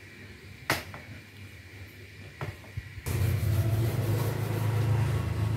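A sharp click just under a second in. About three seconds in comes a steady, louder rubbing noise over a low hum as a sponge scrubs the wet hood of the white car.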